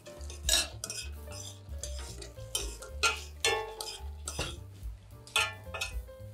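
A cooking utensil scraping and clinking against a pan in a run of short, sharp strokes as sauce is stirred together with the fish's own juices, over soft background music.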